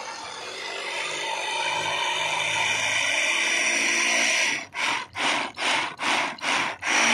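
Miniature shaft-driven flour mill grinding wheat, powered by the motor of a toy tractor: a steady mechanical whirring and grinding that grows louder over the first few seconds, then stutters, cutting out and back in about five times near the end.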